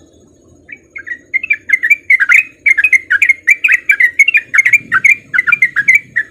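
Sooty-headed bulbul (trucukan) singing a fast, unbroken run of short whistled notes, beginning about a second in.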